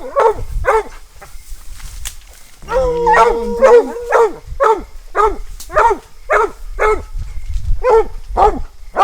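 Coonhounds barking treed: a steady string of short chop barks, about two a second, with a long, drawn-out bawl about three seconds in. The barking is the sign that the hounds have their quarry up the tree.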